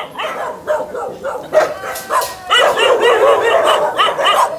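A pack of shelter dogs barking and yipping, a few scattered barks at first that swell into a dense chorus of many dogs at once about halfway through.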